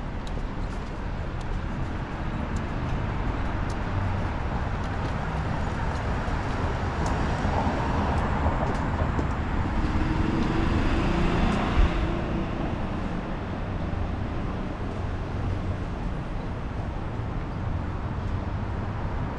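City street ambience with road traffic running steadily; a vehicle passes close, swelling louder in the middle, followed by a single low thump.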